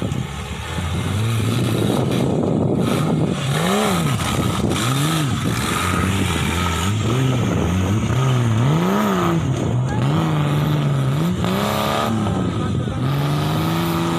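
Off-road buggy engine revving hard and easing off over and over as it is driven across a dirt course, its pitch rising and falling every second or two. Near the end it holds a higher, steady pitch.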